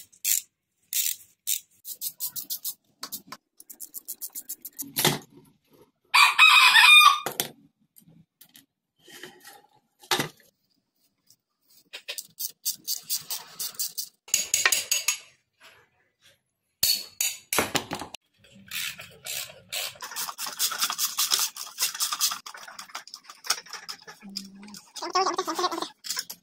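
Hand work on motorcycle parts: a string of sharp clicks, taps and short scraping strokes, some in quick even runs. A loud drawn-out call of about a second and a half stands out about six seconds in.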